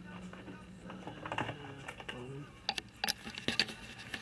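Scattered sharp clicks and taps from wire leads and a plug connector being handled at a TV's power supply board: one click about a second in, then a quick cluster near the end.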